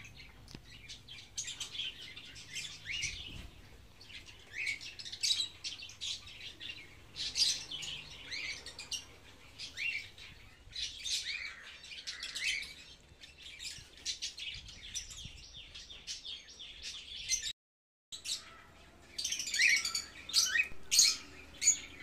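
Caged African lovebirds chirping: a busy stream of short, high chirps in quick clusters, cutting out abruptly for a moment about three-quarters of the way through.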